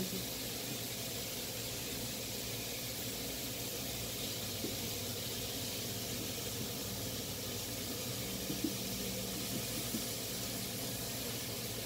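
Barbecue-sauced chicken thighs sizzling steadily on a Hamilton Beach electric indoor grill, with a few faint taps about halfway and near the end.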